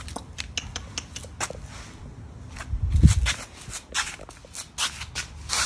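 Shih Tzu puppy's paws and claws clicking irregularly on concrete as it moves about, with one muffled low thump about three seconds in.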